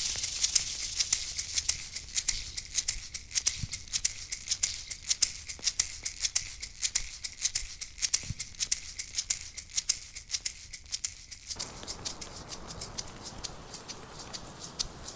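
Hand rattle or shaker shaken in a loose, uneven pulse of quick, dry, high strokes, several a second.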